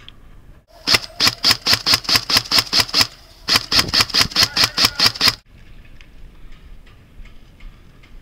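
G&P M4 airsoft electric rifle firing rapid single shots, about six a second, in two strings of a dozen or so sharp cracks with a short break between them.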